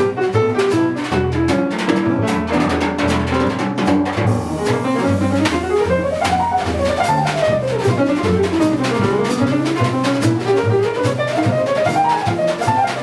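Live small-group jazz: upright piano, double bass and drum kit playing together, with fast runs of notes rising and falling through the middle of the passage.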